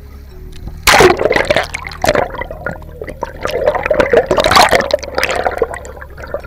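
Loud, close-up water splashing and bubbling as a swimmer goes off a boat into the sea with an action camera. It comes in irregular bursts, starting about a second in and easing off near the end.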